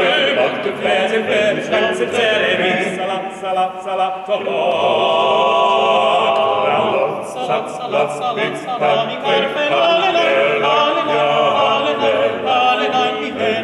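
A male vocal quartet of two tenors, a baritone and a bass singing unaccompanied in close harmony, with a long held chord in the middle.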